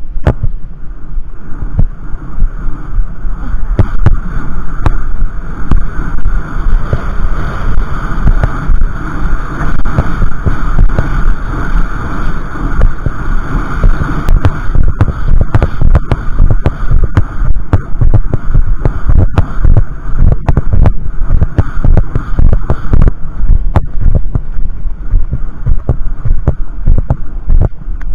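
Heavy wind rumble buffeting a helmet camera's microphone as a Thoroughbred horse is ridden fast over a grass track, with irregular thuds of hoofbeats through it.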